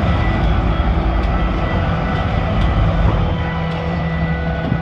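Sportfishing boat's engine running steadily with a low drone, under a haze of wind and sea noise.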